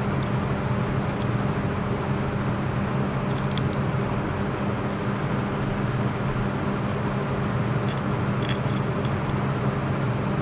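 A steady low machine hum with a noisy hiss over it, running without change, with a few faint light ticks about a third of the way in and again near the end.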